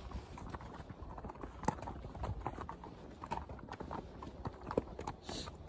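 Icelandic horses' hooves clip-clopping on snow-dusted ground as the horses are ridden in a line, an irregular run of short hoof strikes.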